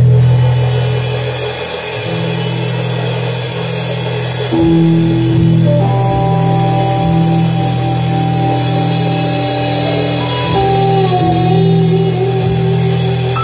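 Live rock band playing an instrumental passage: electric guitars, bass and keyboard over a drum kit. The band gets louder with a steady drum beat about four and a half seconds in, and long held guitar notes bend in pitch near the end.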